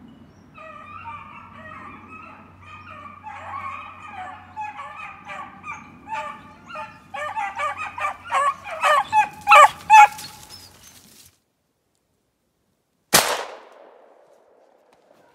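Hunting hounds baying on a hare's trail, their calls growing louder and faster until they stop abruptly about eleven seconds in. About two seconds later comes a single gunshot with a fading echo.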